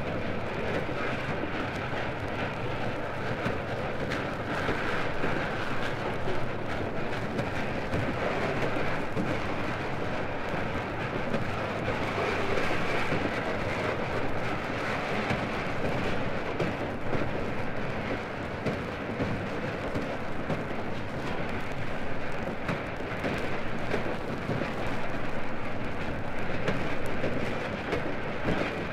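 Steam locomotive running, a dense, continuous rumble and rush of exhaust and running gear with no separate beats to be picked out.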